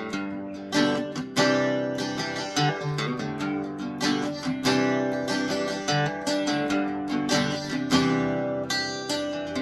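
Kay K6878 Leader super auditorium archtop acoustic guitar being played, plucked and strummed chords ringing out one after another with sharp attacks.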